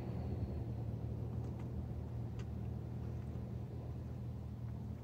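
Steady low rumble, with a few faint clicks about one and a half and two and a half seconds in.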